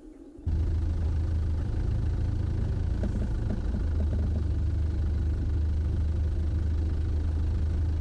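An engine idling steadily, a loud low hum that begins abruptly about half a second in.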